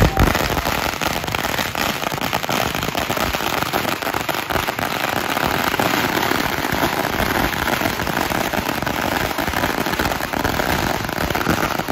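Firecrackers going off in a dense, continuous rapid crackle of small bangs, then cutting off suddenly at the end.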